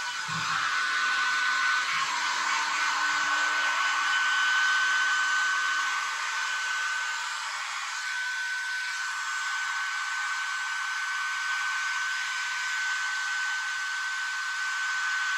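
Electric hot-air blower running steadily: a continuous rushing hiss with a steady high whine.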